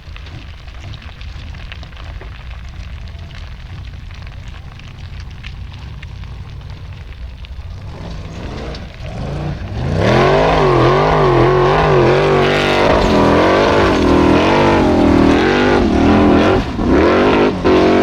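Formula offroad racing car's engine: a low rumble at first, then from about eight seconds in it revs up and runs loud at high revs, its pitch swinging up and down, with a few brief drops near the end.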